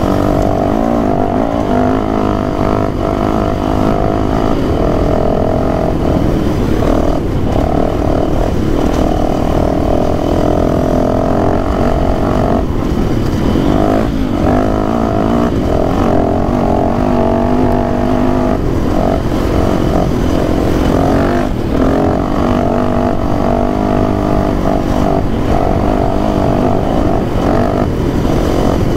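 Dirt bike engine running under way, its pitch shifting with the throttle and dropping away briefly a few times.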